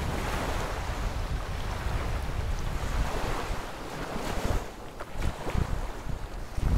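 Wind blowing across the microphone in gusts, with sea waves washing at the shore.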